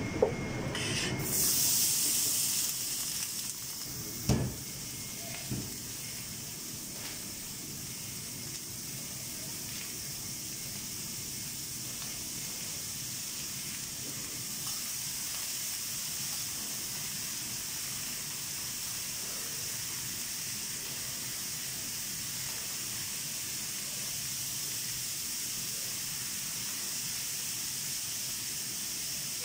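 Chopped bell peppers and onions sizzling on a hot flat-top griddle. A loud burst of sizzle comes about a second in as they land, then a steady hiss. A sharp knock comes about four seconds in.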